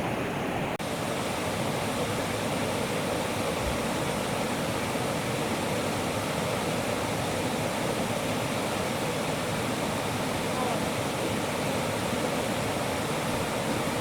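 Mountain valley stream rushing over rocks: a steady, full rush of water with a brief dip about a second in.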